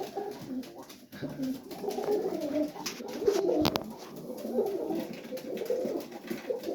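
Serbian Highflyer pigeons cooing in the loft, a steady overlapping coo of wavering low notes. A single sharp click a little under four seconds in.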